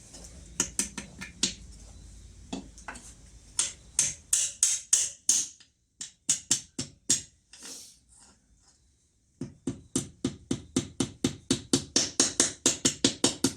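Sharp light taps of a tool knocking a drive shaft seal into an outboard's water pump housing, in short irregular groups at first, then after a brief pause a steady run of about four taps a second.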